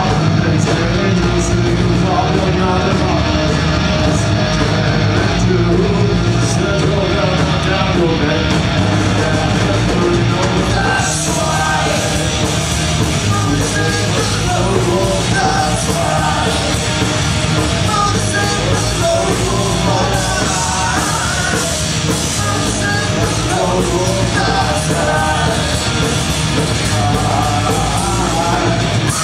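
Live horror-punk rock band playing at full volume: distorted electric guitar, bass and drums, with shouted, yelled vocals.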